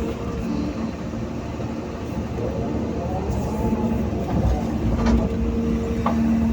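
Hydraulic excavator working: diesel engine running steadily with a steady whine, and a couple of knocks about five and six seconds in.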